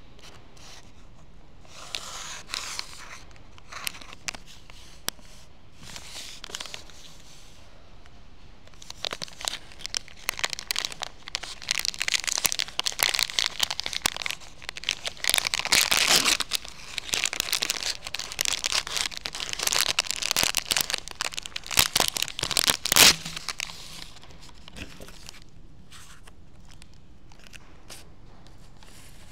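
Plastic snack wrapper crinkling and tearing as it is opened by hand: a few scattered crinkles at first, then a dense run of crackling from about nine seconds in, with the loudest rip near the end of that run, followed by lighter handling.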